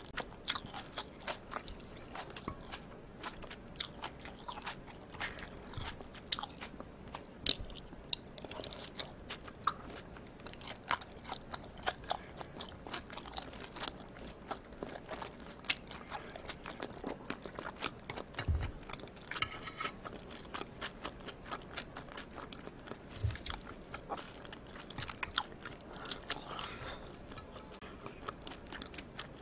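Close-miked wet chewing of raw yellowtail amberjack sashimi: a dense run of soft mouth clicks and smacks, with two brief low thuds about two-thirds of the way through.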